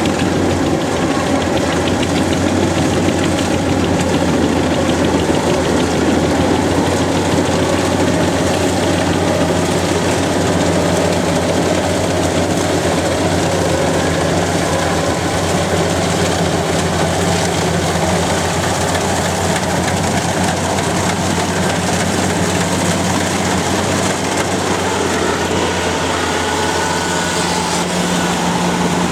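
Kubota rice combine harvester running steadily under load: a constant engine hum with the whir and hiss of the cutting and threshing machinery over it.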